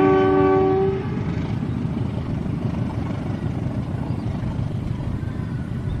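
A diesel locomotive's multi-tone horn sounds a long blast, the Semboyan 35 signal, ending about a second in. After it, a steady low rumble of the train running on.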